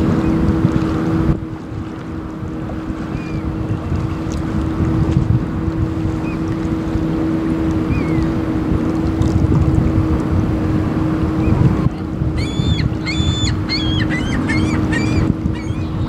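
A motor's steady hum with a constant drone, under a low wind rumble on the microphone. A few faint chirps come early, and about twelve seconds in a bird gives a rapid run of about ten high, clear piping notes lasting some three seconds.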